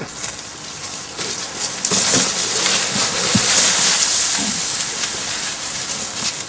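A loud hissing rush of noise from an elephant pushing through dry bush and kicking up dust; it swells about two seconds in and eases after about five seconds.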